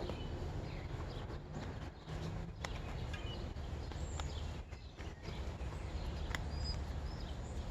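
Hands working a mountain bike tire and inner tube onto the wheel rim: rubber rubbing and a few sharp clicks over a low steady rumble.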